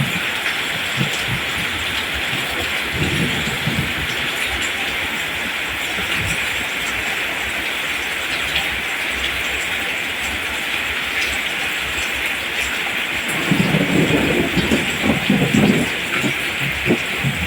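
Steady rain hissing down on plants and ground, with low rumbles of distant thunder about three seconds in and again for a couple of seconds near the end.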